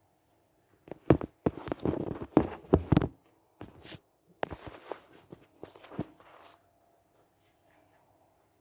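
A run of knocks and scuffing noises, several sharp clicks among them, in two clusters over the first six and a half seconds.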